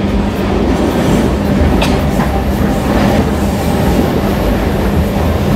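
Metro train running, heard from inside the carriage: a steady loud rumble with rattling and a few light clicks from the wheels on the track.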